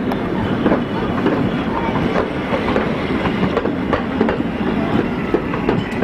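Heritage passenger carriages rolling past on the track, wheels clicking irregularly over the rail joints over a steady rumble.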